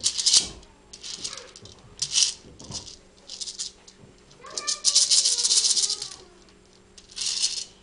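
A rattle shaken in about seven short bursts, the longest lasting more than a second around the middle.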